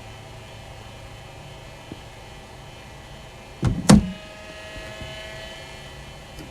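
A cricket bat striking a ball delivered by a bowling machine: two sharp knocks close together a little past halfway, the second and louder one the bat meeting the ball. A steady motor hum from the bowling machine runs underneath.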